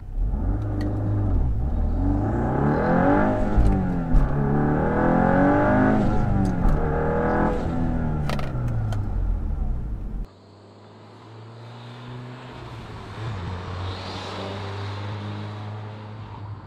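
VW MK8 Golf R's turbocharged 2.0-litre four-cylinder through an ECS Tuning valved catback exhaust with the valves open, heard from inside the cabin under hard acceleration: the engine note rises, drops and rises again, as on upshifts, with a few brief sharp cracks. About ten seconds in it changes to the car heard from outside, quieter and steadier, as it drives away.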